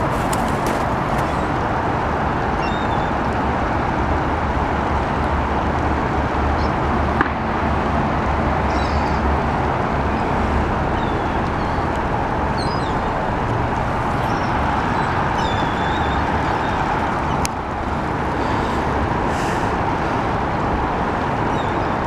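Gulls calling now and then over a steady wash of city noise.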